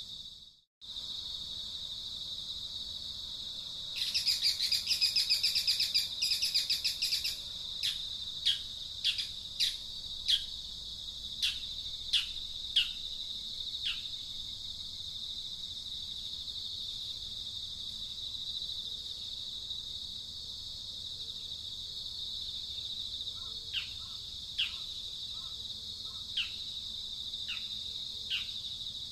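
Nature ambience: a steady high insect drone with birds chirping over it. The audio cuts out briefly just after the start. A bird trills rapidly for about three seconds, then gives single, quick downward-sweeping chirps in two runs, each a second or so apart.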